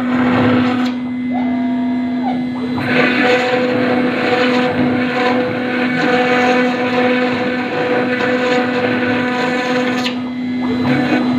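CNC router spindle running with a steady whine while its bit cuts into granite. A harsher grinding noise from the cut comes in about three seconds in and fades near the end.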